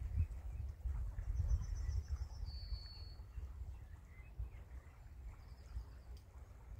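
Low, uneven rumble of wind buffeting the microphone, easing off in the second half. Small birds call over it: a short trill and a high whistled note about two seconds in, and another brief trill near the end.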